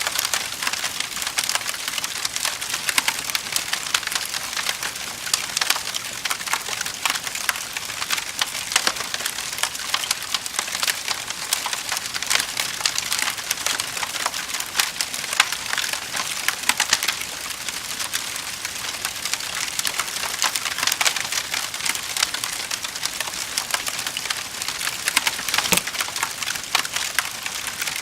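Wood fire crackling in a fireplace: a steady hiss with frequent sharp pops and snaps throughout.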